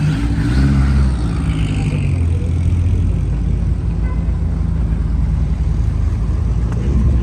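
Car engine running loudly at low, fairly steady revs, with small shifts in pitch in the first couple of seconds.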